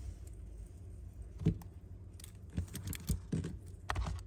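Irregular light clicks and taps of a Zippo lighter and its box being handled on a table.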